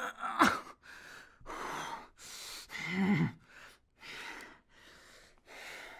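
Soft lump of modelling clay being squashed and kneaded flat by hand: a run of short squishing sounds about every two-thirds of a second, with a short hum-like voice sound about halfway through.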